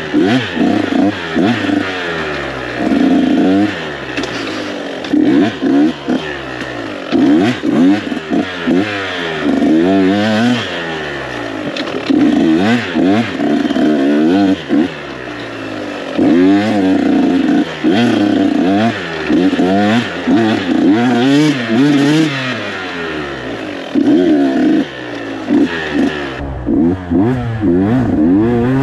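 KTM 125 SX two-stroke single-cylinder dirt bike engine under riding load, revving up and dropping back again and again as the throttle is opened and chopped, with brief dips where it is let off.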